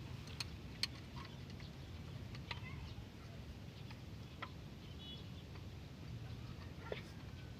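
Scattered light clicks and taps of metal parts being handled as an excavator hydraulic travel motor's cylinder block and pistons are fitted, about six in all, over a low steady background rumble.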